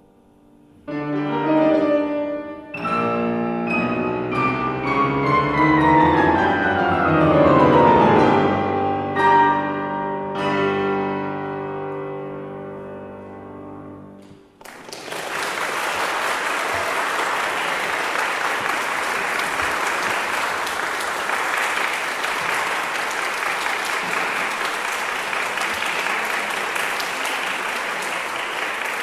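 Grand piano playing the closing bars of a piece: loud chords and a fast run sweeping downward, then a last chord dying away. About halfway through, audience applause starts and continues steadily.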